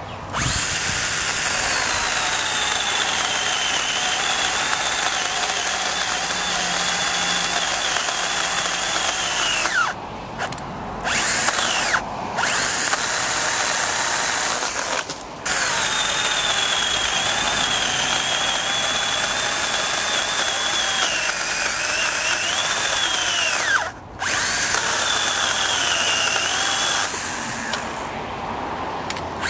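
Stihl GTA 26 battery pruning saw cutting through a small tree trunk: a high motor-and-chain whine that sags in pitch as the chain bites and recovers. It cuts out abruptly and starts again several times.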